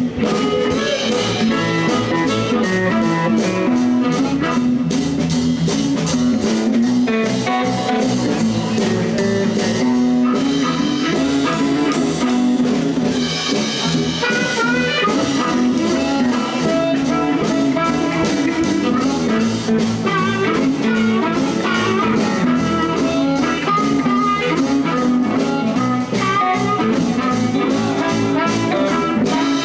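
Live blues band playing an instrumental shuffle: electric guitar lines over bass and a drum kit keeping a steady, even beat.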